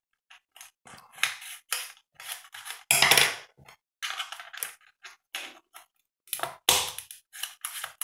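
A TPMS display's ball-joint stand being screwed back together by hand: a run of irregular short clicks and scrapes as the cap is turned onto the ball mount. The loudest come about three seconds in and just before seven seconds.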